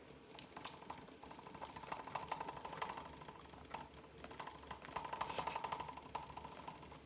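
Computer mouse button clicked as fast as possible in a click-speed test, a rapid, even run of light clicks at about eleven a second.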